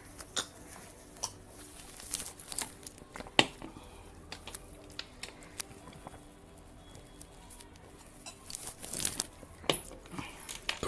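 Scattered short clicks and crinkles of eating and drinking at a table, with a glass and food being handled, over faint music.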